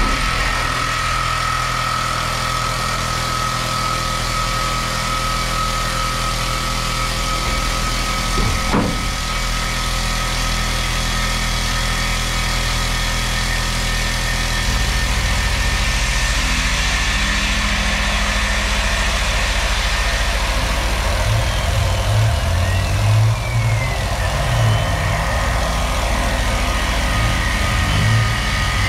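Tormach 1100M CNC mill cutting an aluminium part: a steady spindle whine over a constant hiss from the mist-coolant nozzle. The low machine tones shift about halfway through and turn into an uneven low pulsing near the end as the cut and table moves change. There is one sharp click about nine seconds in.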